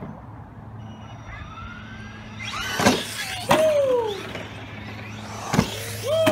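Electric RC short-course truck driving and jumping. The motor whine rises as it speeds up, sharp knocks come from hits and landings, and falling whines follow them as the motor slows.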